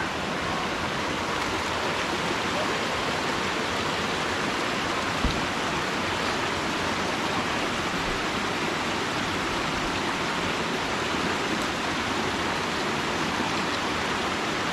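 Steady rush of flowing water, with one brief knock about five seconds in.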